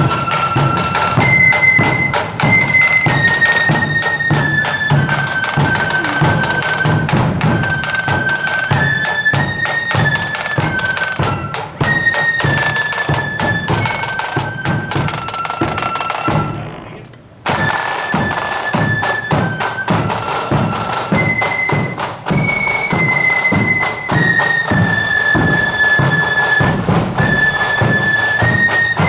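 Marching flute band playing a tune: flutes in unison holding and stepping between high notes over rapid side-drum rolls and the beat of a bass drum. The sound breaks off for about a second about two-thirds through, then the tune carries on.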